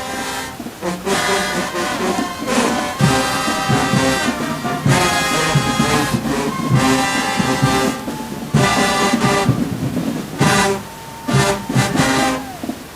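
Marching band playing: brass chords in short, punchy blasts with drum hits beneath, the phrases broken by brief gaps. Loud, with poor, rough recording quality.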